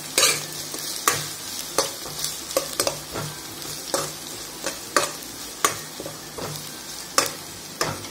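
Chopped onion, garlic, ginger, green chilli and curry leaves sizzling as they are sautéed in hot oil in a kadhai. A spatula stirs them, knocking and scraping against the pan about one and a half times a second.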